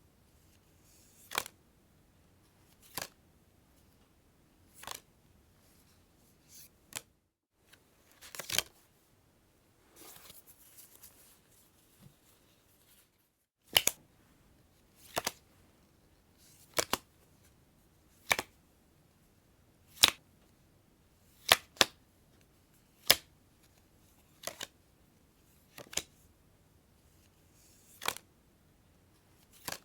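Playing cards handled one at a time: a series of sharp single snaps, about one every one and a half seconds, with a gap filled by a few seconds of soft rustling about ten seconds in.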